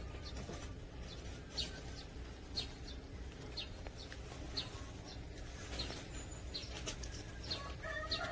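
A small bird chirps repeatedly, about once a second, with short high notes over a steady low outdoor rumble. Near the end a rooster begins to crow.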